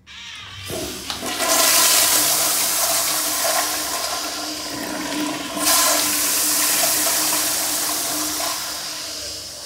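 Tankless commercial toilet flushing on its flush valve. A knock about half a second in is followed by a loud rush of water, a second surge around the middle, and then the rush slowly easing off.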